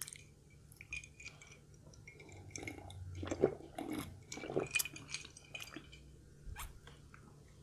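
A person drinking from a lidded paper cup: faint clicks and rustles as the cup is handled, then a few gulps and swallows clustered around the middle.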